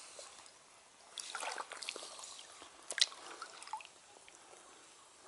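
Faint, irregular splashes and drips of river water around chest waders as someone wades a shallow stream. They are scattered through the middle seconds, with one a little louder about three seconds in.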